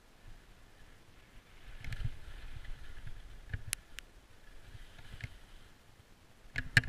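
Skis scraping and rattling over chopped-up, tracked snow, with sharp clicks and knocks from the skis and poles, the loudest cluster of knocks near the end.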